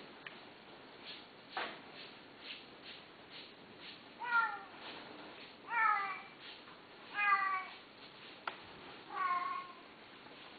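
A cat meowing four times, each meow about half a second long and dropping in pitch, roughly a second and a half apart from about four seconds in. There is faint scuffling in the first few seconds.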